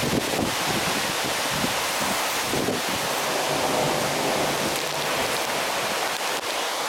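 Torrential cloudburst rain and gale-force storm wind as one dense, steady roar, with heavy wind buffeting on the microphone.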